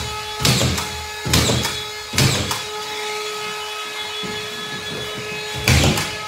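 Collated drywall screw gun with its motor running in a steady whine, driving screws through drywall into the ceiling joists: three loud bursts in quick succession in the first couple of seconds, then the gun whines on alone, with another burst near the end.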